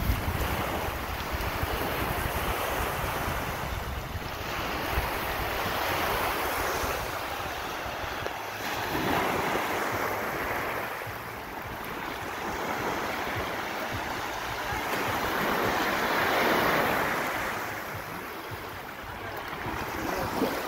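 Small sea waves washing onto a shallow sand shore, a steady surf hiss that swells and fades every few seconds, with wind buffeting the microphone.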